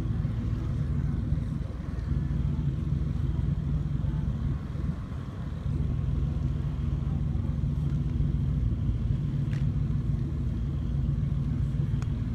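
Diesel engine of a mobile crane running steadily with a low rumble while it hoists a race boat on straps, dipping briefly about five seconds in.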